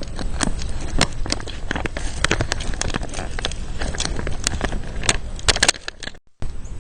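Plastic and cardboard packaging crackling, with irregular sharp clicks as a DeWalt 20 V max lithium-ion battery is handled and unwrapped, over a steady low rumble. The sound drops out briefly near the end.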